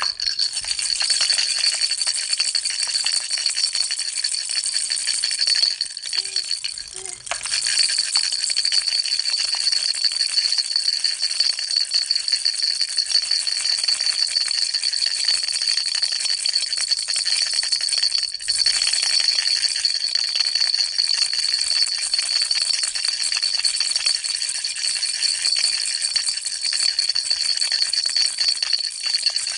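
Baby rattle shaken without pause, a fast, dense rattle with a steady high ringing tone through it. It stops briefly about six seconds in and dips once more a little past halfway.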